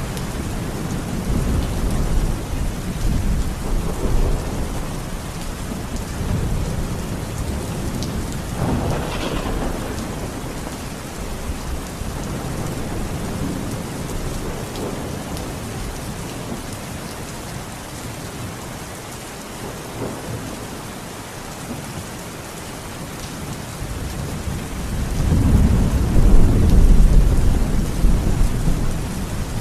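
Thunderstorm: steady rain with rolling thunder. Low rumbles come and go through the first ten seconds or so, the storm eases for a while, and then a louder rumble builds near the end.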